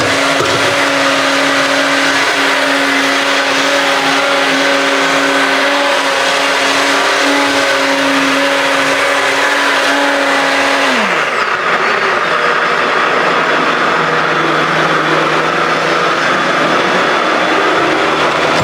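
Electric kitchen blender running steadily while blending salsa, a blender its owner says is broken. About eleven seconds in, the motor's pitch falls sharply and the sound turns lower and duller, then keeps running.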